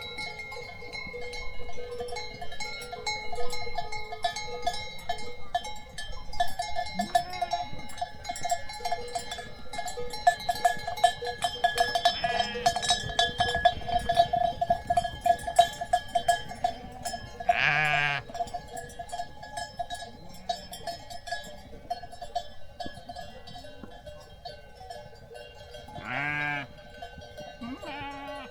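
A flock of sheep and goats with bells clanking and ringing steadily, with several bleats breaking through; the loudest bleat comes a little past the middle, and two more come near the end.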